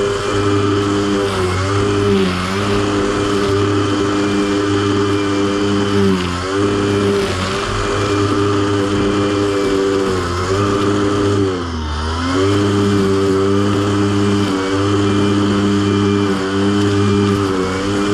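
Riding lawn mower's gas engine running steadily under load, its pitch sagging briefly every few seconds and recovering.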